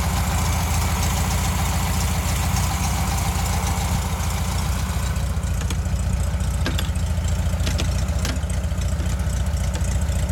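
A 1600 cc air-cooled Volkswagen flat-four engine idling steadily, with a rushing hiss that fades about halfway through. A few light clicks come in the second half.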